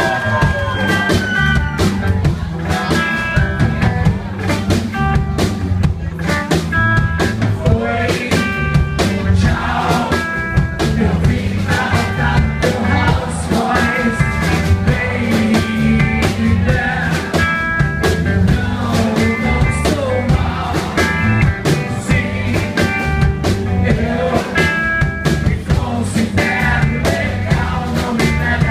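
Live rock-and-roll band playing: electric guitar, electric bass and drum kit with a steady, driving beat.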